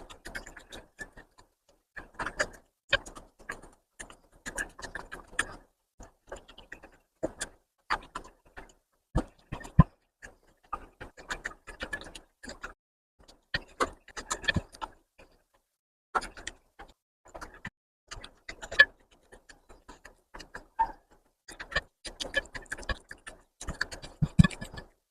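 Close-up chewing and lip-smacking while eating spicy mutton fat curry with rice: runs of short, wet clicks and smacks with brief pauses, and a few louder knocks.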